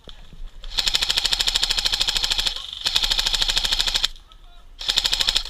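Airsoft gun firing on full auto: three bursts of rapid, even clicks, the first about two seconds long, the second just over a second, and a short one near the end.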